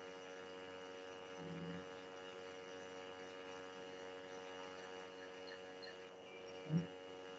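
Steady electrical hum, several pitches held together, carried on a video call's audio line. A brief low murmur comes near the end.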